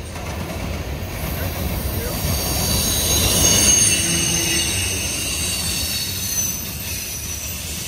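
Freight train of tank cars and covered hopper cars rolling past, a steady low rumble of steel wheels on rail. From about a second in, the wheels squeal in several high thin tones, loudest about halfway through.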